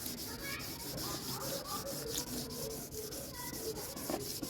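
Fine wet-and-dry sandpaper rubbed by hand over a car bumper in rapid, even back-and-forth strokes, wet flatting the primer smooth.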